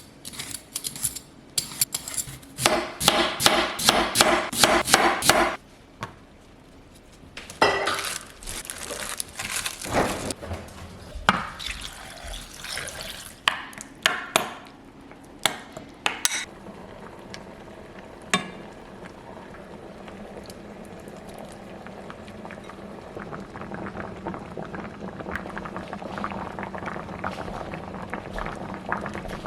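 Kitchen cooking sounds: pots, dishes and utensils clattering and knocking, with liquid being poured. In the second half this gives way to a steady simmering hiss that slowly grows louder.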